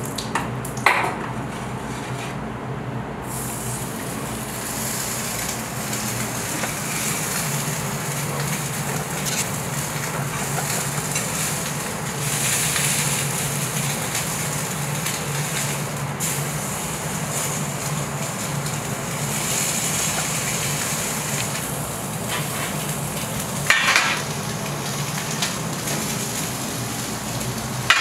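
Turbot frying in a pan, a steady sizzle. A few short knocks stand out: one about a second in and two near the end.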